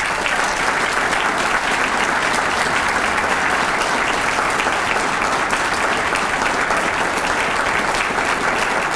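Audience applauding: steady, sustained clapping from a large seated crowd, starting abruptly and holding at an even level throughout.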